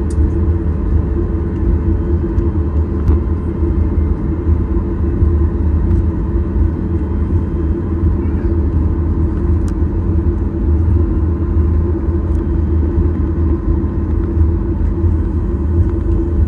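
Steady low rumble inside the cabin of a Boeing 737-8 MAX, from its CFM LEAP-1B engines and the air rushing past, with a faint hum over it.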